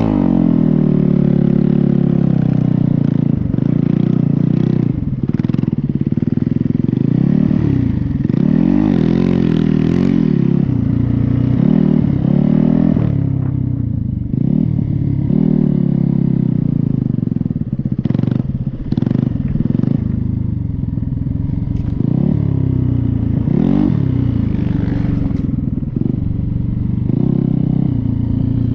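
Snow bike's dirt-bike engine running hard under constant throttle changes, its pitch rising and falling every second or two, with a few brief throttle-offs.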